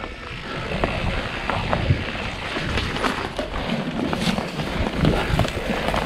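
Mountain bike riding downhill on a dirt trail: tyres rolling over dirt and stones, with frequent small knocks and rattles from the bike over the bumps, and wind noise on the helmet camera's microphone.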